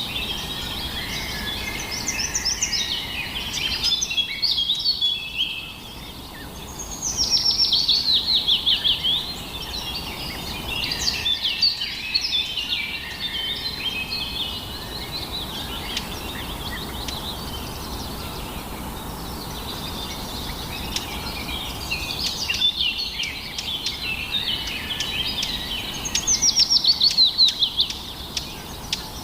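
Small birds chirping and twittering without a break. Louder runs of quick, falling notes come about seven seconds in and again near the end.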